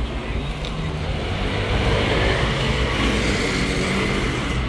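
City street traffic, with a motor vehicle passing close by; the noise swells about two seconds in and stays up.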